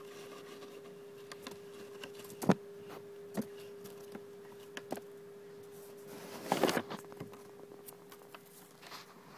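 Golden hamster moving about on newspaper and against its wooden house: scattered small clicks and scratches, the loudest a sharp knock about two and a half seconds in and a brief rustle a little past the middle, over a steady hum.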